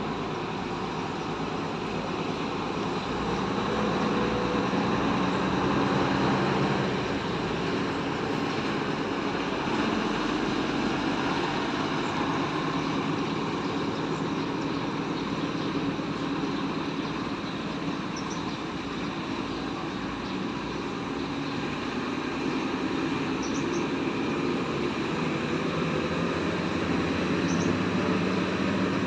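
A bus engine running steadily. It grows somewhat louder a few seconds in, then eases back and holds.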